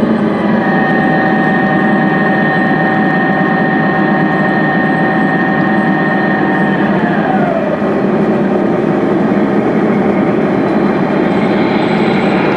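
Märklin gauge 1 model diesel locomotive (V200) running on garden track: a steady whine over continuous rolling noise, the whine falling in pitch about seven seconds in as the locomotive slows to a stop.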